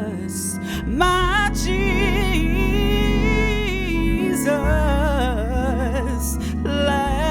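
Gospel Organ virtual instrument, a Hammond organ emulation sampled from an A100, holding sustained chords over a bass line while a voice sings a wordless, sliding melodic run above it. The chord changes about four and a half seconds in, and again near the end.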